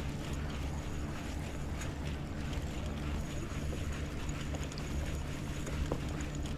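Spinning reel being cranked to bring in a hooked fish, over a steady low hum.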